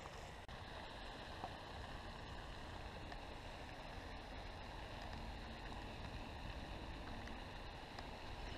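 Faint steady outdoor background noise, mostly a low rumble of wind on the microphone, with one tiny click about a second and a half in.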